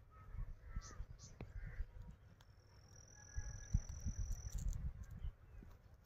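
Outdoor ambience: wind rumbling on the microphone, with a few short bird calls in the first two seconds and a thin, high, steady insect trill from about two seconds in to past the middle.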